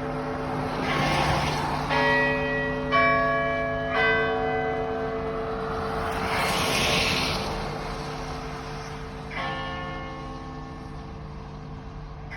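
Several church bells of different pitches ringing in a peal, new strikes landing about once a second early on and again later, each leaving a long ringing hum. A broad rushing noise swells and fades through the middle.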